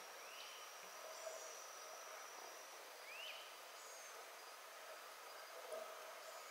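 Faint wildlife ambience: a steady, high insect drone, with a short call that rises and falls in pitch twice, about three seconds apart.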